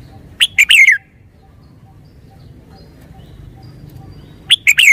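Red-whiskered bulbul singing: a short, loud phrase of a few quick sharp notes ending in a falling warble about half a second in, and the same phrase again near the end.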